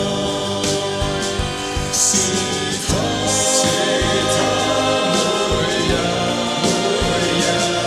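Gospel-style worship song: a band with a steady drum beat and sustained chords, with choir voices on held notes and cymbal splashes about two and three and a half seconds in.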